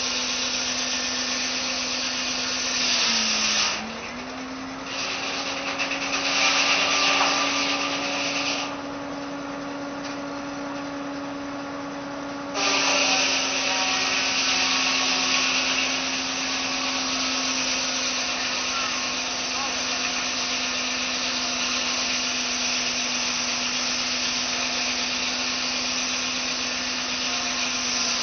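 Tractor-powered circular sawmill cutting a log: the spinning blade gives a steady hum, with a loud hissing rasp while it is in the wood. The hum dips in pitch briefly as the blade bites in, about three seconds in and again at the very end. The longest cut runs from about twelve seconds in almost to the end.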